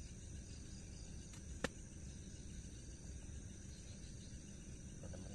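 Crickets chirping in a steady high-pitched chorus over low background hiss, with a single sharp click about a second and a half in.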